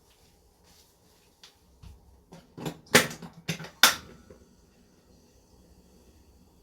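A short run of sharp clicks and knocks starting about two seconds in and lasting under two seconds, the two loudest about a second apart.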